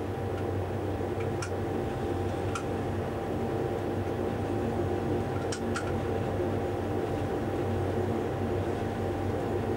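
Steady drone of a DSB MK-class diesel shunting locomotive heard from inside its cab as it rolls slowly along the track: a low hum with a thin steady whine over it. A few faint clicks sound through it.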